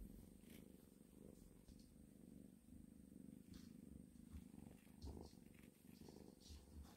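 Tabby kitten purring steadily and faintly while being stroked, with light rustling from the hand on its fur and the plush bed.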